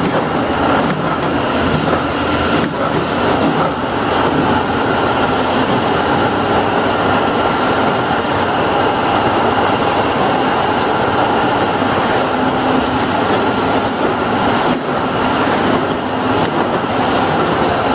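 Automatic motor-oil filling and capping line running: a loud, steady machine din from the conveyors and capping heads, with a faint steady whine and scattered light clicks.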